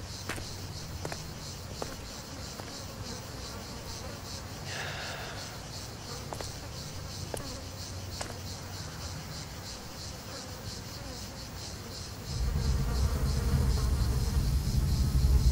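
Insects buzzing in a steady, pulsing high drone, with a few faint ticks. About twelve seconds in, a loud low rumble comes in and dominates.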